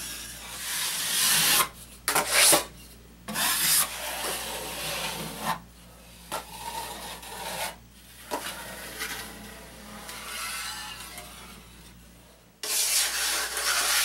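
Steel drywall knife scraping, a series of rasping strokes as joint compound is spread and wiped along metal corner bead and scraped off the knife on a mud pan. Some strokes are short and several are long.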